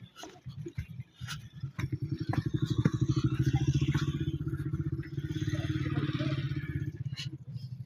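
A motor engine running with a fast, even pulse. It swells about two seconds in, holds steady, and fades near the end.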